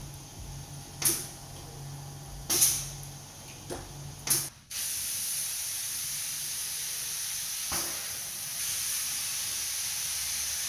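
Steady hiss of a resin spray gun wetting out a fibreglass laminate test panel, starting about four and a half seconds in. Before it, a low hum with a few short hisses.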